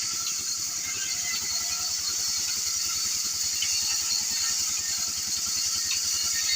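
A small motor running steadily, with a constant high hiss over a fast, even low pulse.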